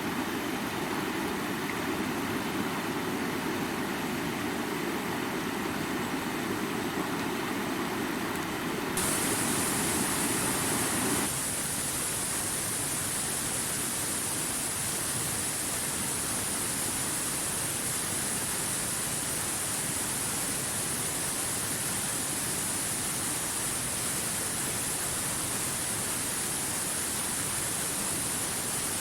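Stream water rushing and splashing over rocks, a steady noise. About a third of the way in it changes from a deeper rush to a brighter, hissier rush of water.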